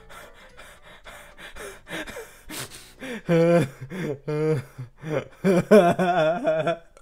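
A man laughing hard into a close headset microphone: breathy, gasping bursts at first, then from about three seconds in loud voiced laughter that wobbles up and down in pitch.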